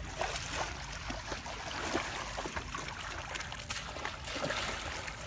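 Muddy water splashing and trickling as a round woven bamboo fishing basket (chhneang) is scooped through shallow water and lifted, with many small splashes and drips, and legs wading.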